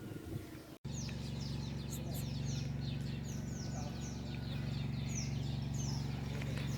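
Birds chirping: a quick run of short, high calls that each sweep downward, two or three a second, over a steady low hum. The sound starts abruptly about a second in.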